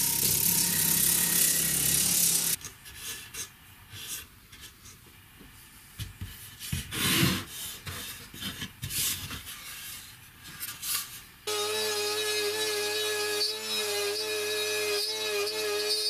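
Woodworking tool sounds: a power tool runs for the first couple of seconds, then scattered rubbing and filing strokes on wood. About eleven seconds in, a steady pitched whine takes over.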